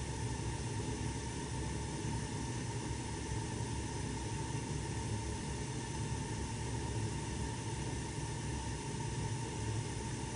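1988 Snyder General gas furnace running during its startup cycle: a steady, even rushing noise over a low hum, with no change.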